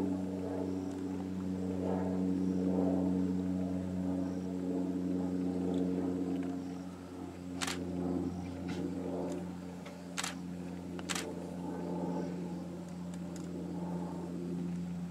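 Steady low hum of an idling vehicle engine, with three sharp clicks: one about halfway through and two more a few seconds later.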